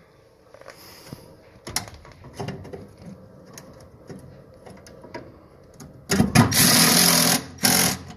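Scattered clicks and knocks of parts being handled, then a small electric motor running loudly in two bursts near the end, the second short, as work goes on fitting the new inducer motor to the furnace.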